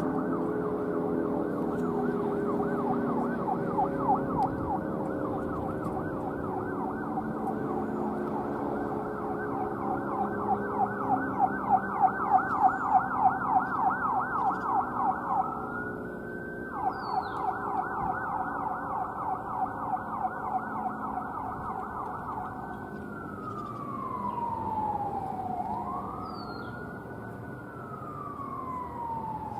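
Siren sweeping quickly up and down, several times a second. It breaks once into a single slow rise and fall, then changes to long, slow falls and rises near the end. A lower steady hum sounds underneath and fades out by about halfway.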